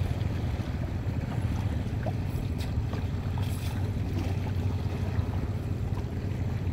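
Steady wind rumble on the microphone over choppy seawater, with a few faint clicks from the cast net's chain weights as they are handled.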